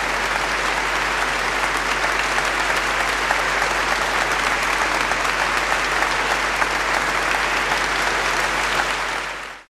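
Audience applauding: a dense, steady clatter of many hands clapping that fades out quickly near the end.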